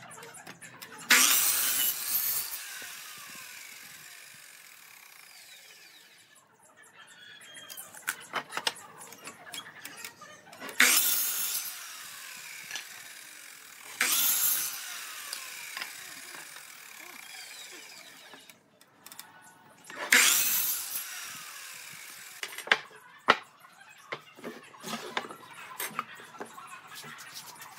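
Woodworking tools working in bursts: four sharp, loud bursts that each fade over a second or two, with scattered clicks and knocks between them.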